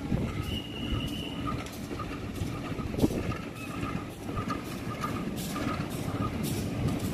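Shunting train moving slowly on the rails: a steady rumble, with a brief high wheel squeal about half a second in and a single sharp knock about three seconds in.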